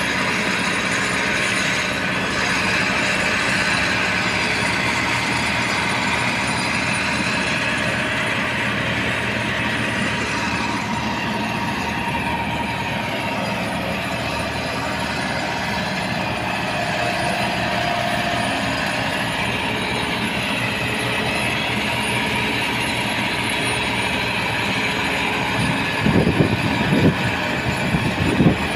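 GAM crawler-track combine harvester running steadily, a dense mechanical noise of engine and machinery at an even level. Near the end, louder uneven sounds break in over it.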